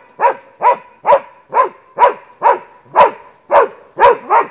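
Slovak hound (slovenský kopov) barking steadily at wild boar: about ten short, loud barks, roughly two a second, each dropping in pitch.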